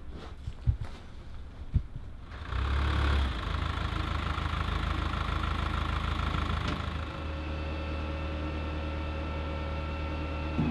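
Flatbed truck's engine idling steadily, coming in about two seconds in after a few light knocks.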